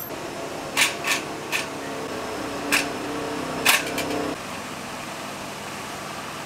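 Several sharp clacks over a faint tone that steps up and down, then, about four seconds in, only a steady even whir like an electric fan running.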